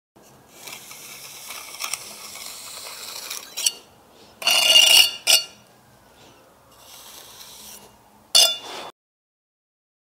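Steel pointing trowel scraping excess mortar off brickwork joints while shaping double-strike (bird's beak) pointing. A soft, continuous scrape runs for the first few seconds, then come sharper scrapes and clinks of steel on mortar and brick, the loudest about four and a half seconds in and a last short one near the end.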